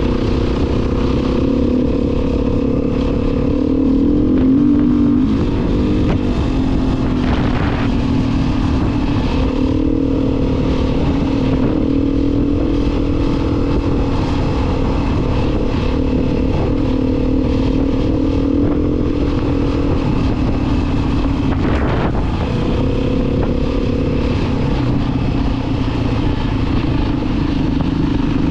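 Motor vehicle engine running steadily at cruising speed, its pitch shifting slightly now and then, over constant wind and road noise.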